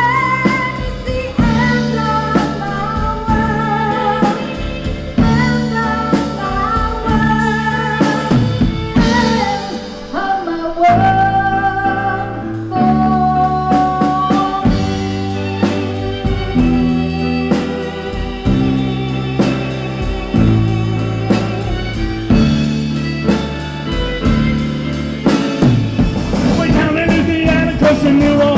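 A live band playing, amplified through a PA: a woman sings the lead over violin, a walking bass line and drums. Near the end the music changes to another song.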